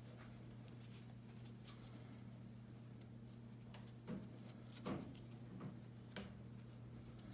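Quiet room tone with a steady low electrical hum, and a few faint knocks and rustles of hand handling from about four to six seconds in, the loudest near five seconds.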